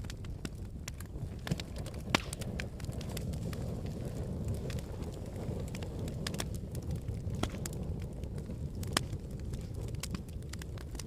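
Wood fire burning: a steady low rumble with scattered sharp crackles and pops, the loudest about two seconds in and another later on.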